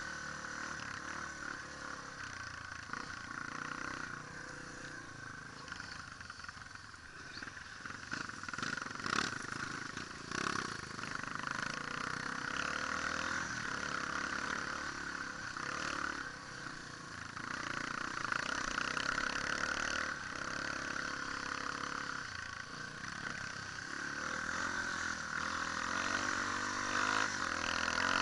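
Dirt bike engine running as it rides over a rough trail, with two sharp knocks about a second and a half apart, roughly a third of the way in.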